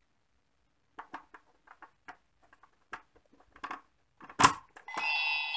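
Small plastic clicks and rattles as a figure is pressed into a Koeda-chan toy house, ending in a sharp snap about four and a half seconds in. Just after, the house's electronic speaker starts a bright chime, set off by the figure clicking into place.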